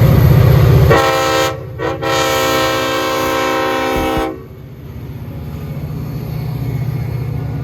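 Train horn sounding twice, a short blast and then a longer one of about two and a half seconds, over a train's low rumble, which carries on after the horn stops.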